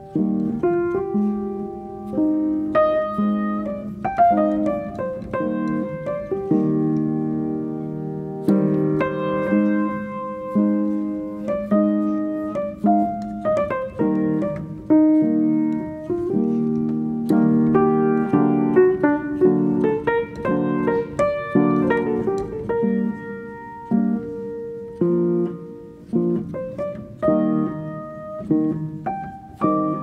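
Background music played on piano: notes and chords struck one after another and left to fade.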